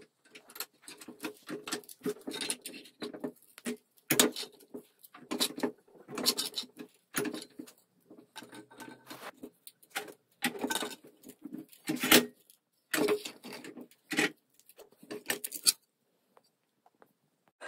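Irregular metal clicks, knocks and scraping from a rusty cleaver tang being clamped in a steel bench vise and worked straight, with a few sharper knocks among them; they stop shortly before the end.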